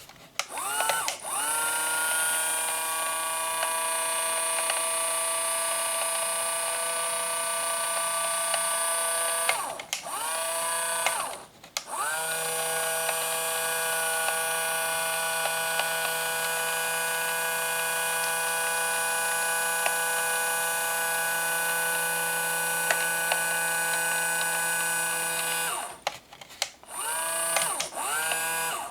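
The small electric actuator motors of a 1/12-scale Hobby Engine RC track loader whining as they drive the lift arms. The whine rises in pitch as the motor starts and then holds steady for two long runs, the first about eight seconds and the second about fourteen, with short bursts between and near the end.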